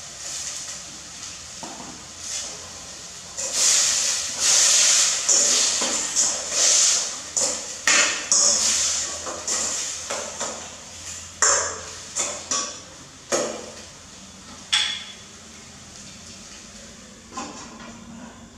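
A metal spoon stirring and scraping inside a stainless steel pot in a run of quick strokes. About fifteen seconds in comes a single sharp metal clink, and a softer knock near the end.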